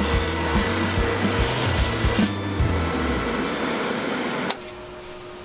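Varnished wooden oar blade rasping against a spinning 180-grit burnishing wheel, knocking down raised grain in the varnish; the rasping cuts off suddenly about four and a half seconds in. Background music with a steady beat plays over the first three seconds.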